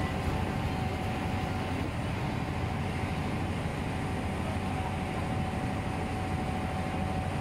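Ferry boat under way: its engine running steadily with the rush of water from its wake along the hull, an even, unbroken rumble.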